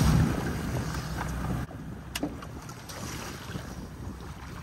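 Outdoor sea ambience with wind on the microphone: a low rumbling noise that eases about a second and a half in, with a single sharp click about two seconds in.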